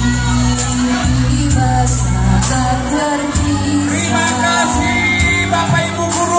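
Pop song with singing over sustained bass notes and a steady beat.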